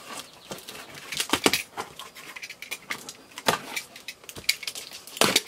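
Utility knife slicing through packing tape on a cardboard box, then the cardboard flaps scraping and rustling as the box is pulled open: an irregular series of short scratchy clicks and rasps, the loudest just before the end.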